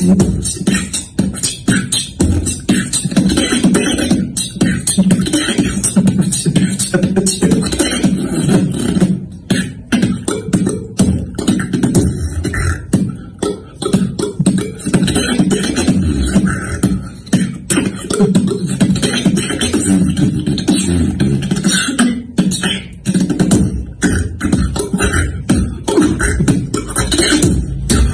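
Solo human beatboxing: a fast, dense stream of mouth-made drum sounds, with sharp clicks and snares over a low bass tone.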